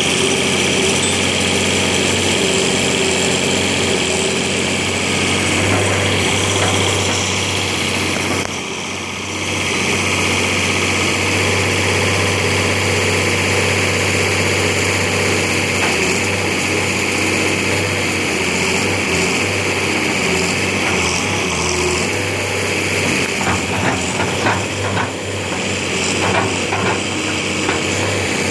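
Engine of a 1978 International 3600A backhoe running steadily while the machine is worked, dipping briefly about eight or nine seconds in. A few short knocks sound near the end.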